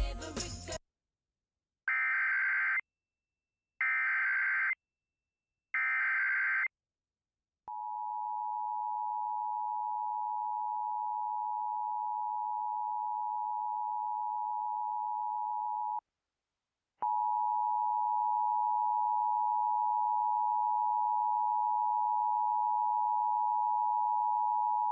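Emergency Alert System tones opening a tornado warning. The SAME digital header sounds as three short buzzing data bursts, about a second each, and then the two-tone attention signal holds steady for about eight seconds. It stops for about a second and sounds again to the end. A brief cut-off snatch of other audio comes at the very start.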